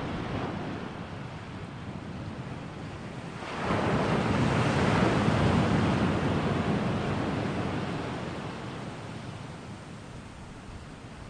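Ocean surf: a steady rush of breaking waves that swells sharply about three and a half seconds in, then slowly dies away as the wave washes out.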